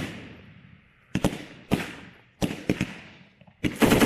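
M240B 7.62 mm machine gun firing from its bipod. A long burst rings off in echo, a few separate shots and very short bursts crack out over the next couple of seconds, and a long rapid burst starts near the end.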